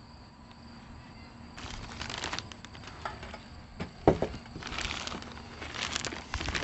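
Clear plastic wrapping crinkling and rustling as it is pulled off a stainless steel forge body, with a sharp thump about four seconds in. A faint steady high insect trill sounds underneath during the first few seconds.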